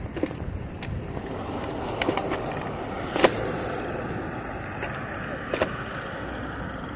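Electric bike rolling along a paved sidewalk: a steady rolling rumble, with a few sharp knocks from jolts over the pavement, the loudest about three seconds in.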